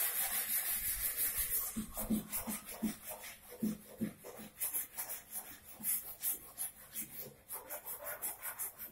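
Hand sanding of a wooden chair: sandpaper rubbed over the wood in quick, repeated short strokes.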